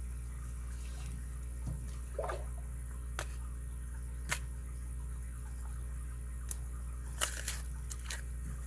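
Small, sharp metal clicks and taps from a Squire Warrior 65 padlock being handled and worked on, a few scattered single clicks and then a short cluster near the end, over a steady low hum.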